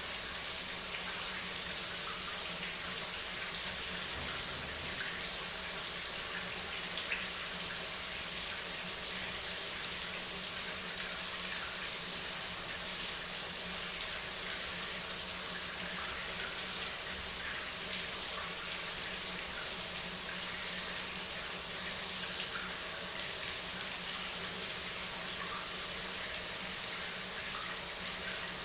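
Shower running: a steady spray of water hissing and splashing onto a hard surface, with small droplet spatters, unchanging throughout.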